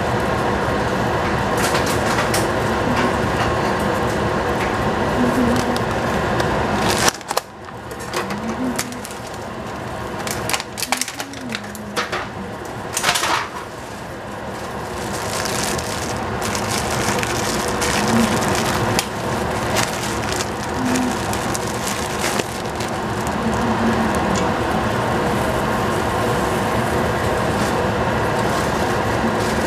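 Water boiling in a stainless steel stockpot on the stove: a steady rushing noise with scattered clicks and knocks. The noise drops away about seven seconds in and builds back over the next several seconds.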